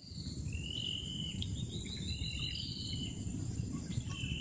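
Insects calling in repeated high buzzing phrases of about a second each, over a steady low rushing noise.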